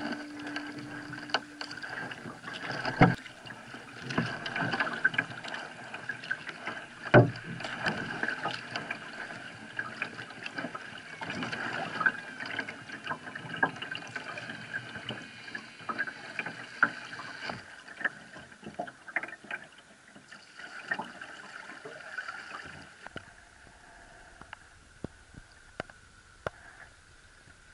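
Kayak paddle strokes dipping and splashing in river water, with small clicks and two sharp knocks, about three and seven seconds in. The sound grows fainter near the end.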